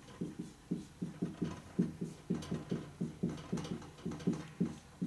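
Marker pen writing on a whiteboard: a rapid series of short rubbing strokes, about five a second.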